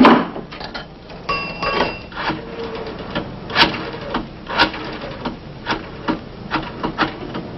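A coin payphone's chime rings as a coin drops in, followed by a string of sharp, irregular clicks as the phone's dial is worked.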